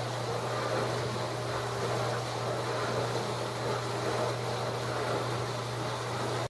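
Amana dishwasher running: a steady low hum under an even rushing noise, with no change in pitch or level.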